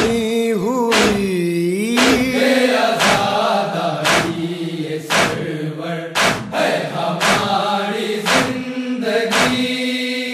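Men chanting a Shia noha, a held, slowly gliding melody, over rhythmic matam: hands striking chests about once a second.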